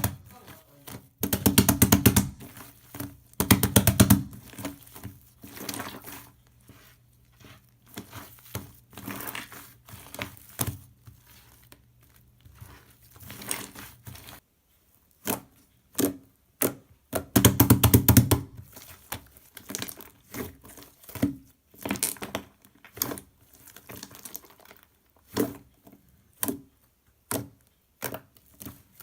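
Slime being squished and pressed by hand, with a string of sharp popping clicks and three dense runs of crackling, the loudest at the start, just after it and midway.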